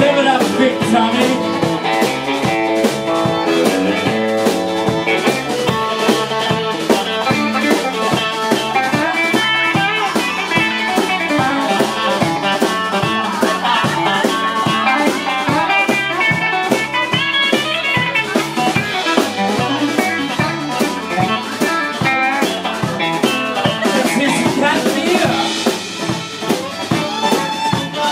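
Live country band playing: electric guitar over a steady drum beat, with fiddle also heard.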